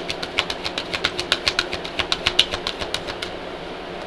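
A deck of oracle cards being shuffled by hand, a quick uneven run of crisp card clicks that stops about three seconds in.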